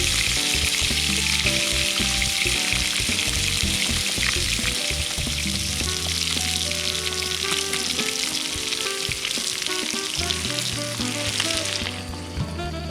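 Meat searing in a hot pan, a steady loud sizzle that cuts off near the end, over background music.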